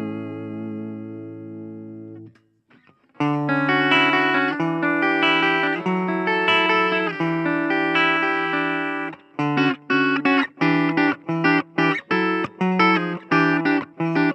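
Electric guitar (Suhr Classic Pro) played on the clean channel of a Blackstar Fly 3 mini amp. A held chord rings with a slight waver and is cut off about two seconds in. After a short pause come ringing chords, then from about nine seconds in short, choppy staccato chords.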